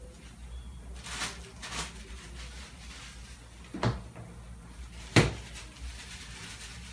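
Paper towel rustling in two quick swishes while a laryngoscope handle is dried by hand, then two sharp knocks, the second one louder.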